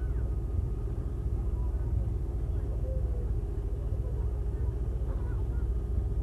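Boat motor running steadily, a low even drone with no change in pitch.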